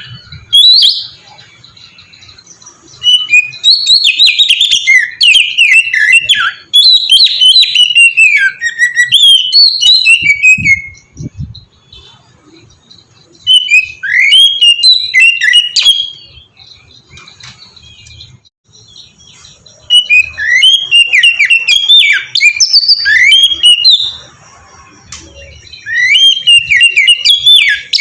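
Oriental magpie-robin (kacer) singing loud, rich whistled song phrases of rapid rising and falling notes, several seconds each, broken by short pauses.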